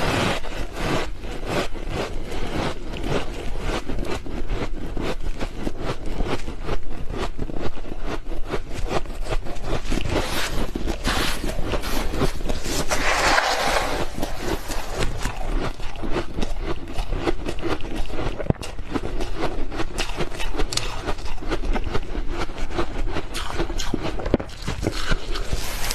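Freezer frost being scraped and crunched: a dense, continuous run of crackling, squeaky crunches, with a louder burst about halfway through.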